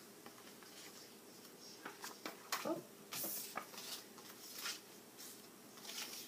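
Paper cards and sticker sheets being handled and shuffled: light rustling and soft taps, with a brief paper slide a little after three seconds in as the loudest moment.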